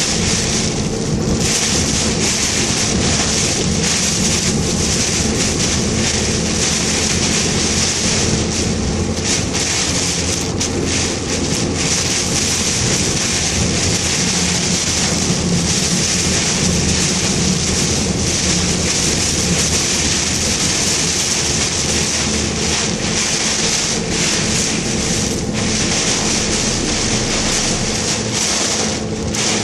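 Heavy typhoon rain and wind beating on a moving car: a loud, dense, steady rush with a faint steady hum underneath, easing slightly near the end.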